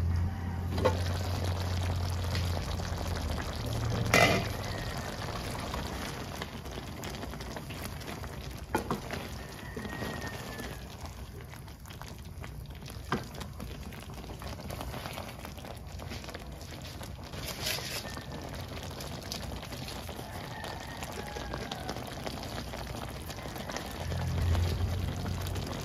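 Creamy milk-and-cream pasta sauce with spaghetti simmering and bubbling steadily in a nonstick pan, with a few sharp clicks spread through it.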